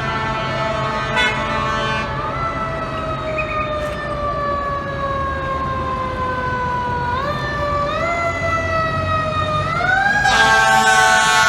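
Fire truck's mechanical siren winding down in a long, slowly falling wail, pushed back up in pitch in short rises several times. About ten seconds in, a loud steady air horn blast joins it.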